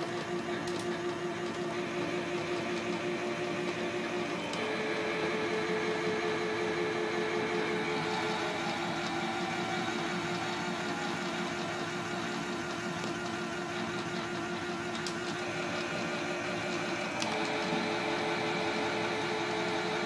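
Toy Miele washing machine running, its small electric motor whirring steadily as the drum turns, the hum shifting in pitch a few times.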